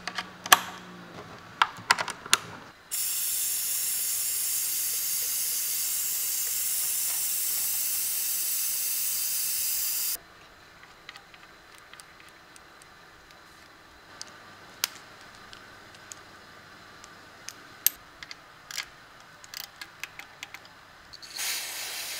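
Sharp clicks as a hose is snapped into a quick-connect coupler on a plastic fluid extractor tank, then a loud, steady hiss of compressed air for about seven seconds that cuts off abruptly. Light metallic clicks and taps follow, and near the end a short spray from an aerosol cleaner can with a straw.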